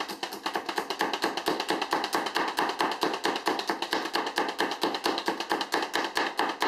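Hand-operated plunger food chopper being pumped rapidly to chop cilantro, making an even, rapid clacking several times a second.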